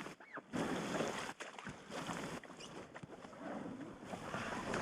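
Inflatable packrafts being pulled further up the riverbank, with uneven rubbing and scraping of the boats' fabric against the ground.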